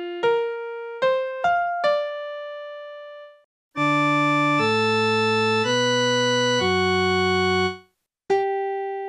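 Keyboard notes played one at a time. First comes a quick run of piano-like struck notes, each dying away, the last ringing out to about three seconds in. After a short gap come four held, steady, organ-like notes of about a second each, and a new struck note begins near the end.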